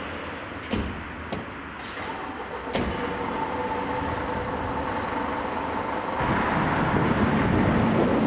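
Fire engine cab doors slamming shut four or five times as the crew boards, then about six seconds in a heavy diesel engine rumble sets in and keeps running as the trucks get ready to respond.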